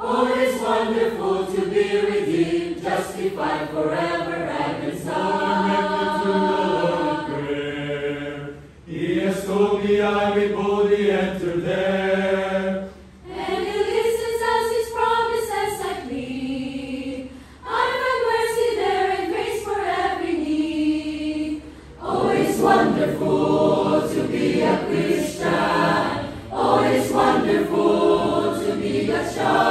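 Mixed choir of men's and women's voices singing a gospel hymn a cappella, the phrases broken by short pauses every few seconds.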